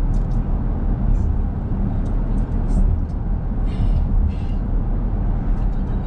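Steady low rumble of a car's tyres and engine while driving on a paved road, heard from the moving car. Two brief high-pitched sounds come about four seconds in.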